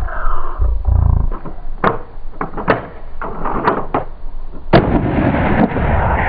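Rough animal calling with a run of about seven sharp cracks in quick succession from about two to five seconds in; the last crack is the loudest.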